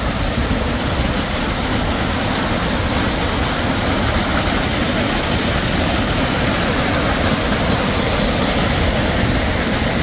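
Whitewater of a mountain stream rushing down a rocky cascade, a steady, loud rush of water.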